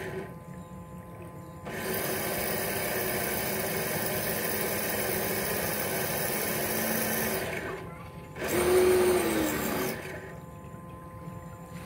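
Motor of a homemade RC model boat running with the throttle opened and closed: a steady buzzing drive that drops back for a second and a half at the start, dips briefly near the eight-second mark before a loud surge, and drops back again for the last two seconds.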